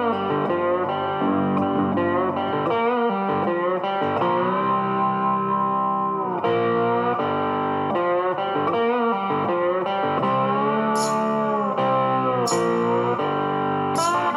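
Background music led by a guitar, with long held notes that bend in pitch and a few sharp percussive hits near the end.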